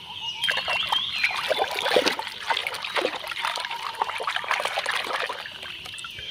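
Hand swishing and splashing a plastic toy animal about in a tub of soapy water, starting about half a second in and easing off near the end.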